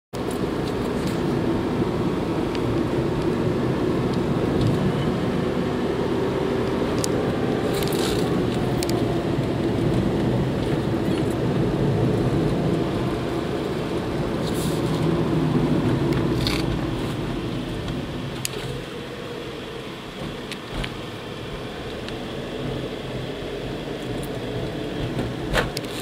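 Car driving, heard from inside the cabin: a steady engine and road hum with a few small clicks and rattles, easing off a little past halfway.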